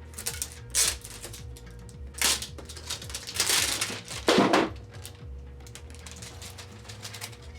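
Sealed product packaging being unwrapped by hand: plastic wrap crinkling and tearing in several short bursts, the loudest about four and a half seconds in.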